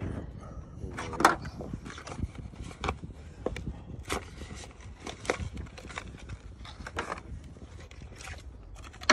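Irregular metallic clicks and knocks of a hand ratchet and socket extension being handled while spark plugs are changed, about one a second, the loudest about a second in, over a low steady rumble.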